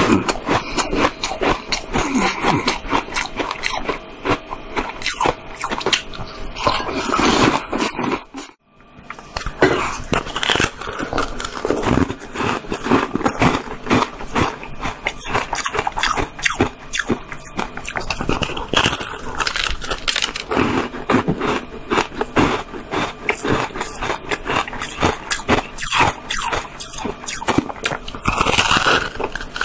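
Close-miked crunching and chewing of frozen shaved ice, a dense run of crackling bites and chews. It breaks off for a moment about eight or nine seconds in, then goes on.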